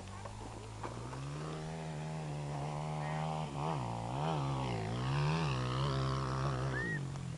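MXF 250 Cross motocross bike's engine heard at a distance, its pitch climbing and then revving up and down several times as it is ridden around the track, growing louder about two-thirds of the way through.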